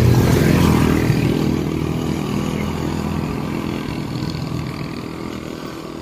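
An engine running with a low, steady pitch, growing gradually fainter.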